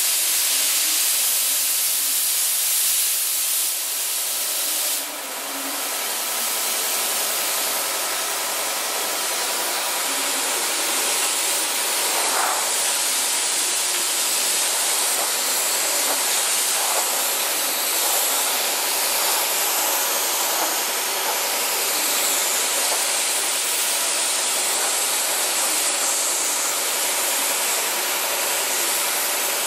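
Gravity-feed paint spray gun spraying primer: a steady hiss of compressed air and atomised paint.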